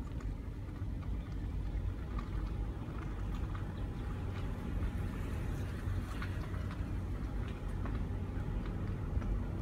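Low, steady rumble of a moving car's engine and tyres, heard from inside the cabin, with faint scattered ticks.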